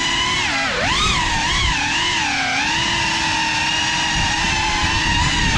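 Brushless motors and propellers of a GEPRC FPV quadcopter whining at high speed. The whine's pitch rises and falls with throttle, dipping sharply and climbing back about a second in.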